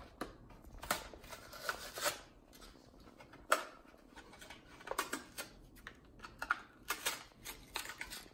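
Hot Wheels blister pack being torn open by hand: the cardboard backing ripping and the plastic bubble crackling in irregular spurts, with a sharp crack about three and a half seconds in.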